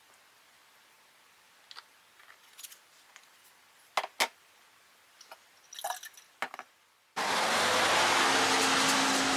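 Small clicks and light handling noises of objects being moved, with two sharper taps about four seconds in. Background music starts abruptly near the end.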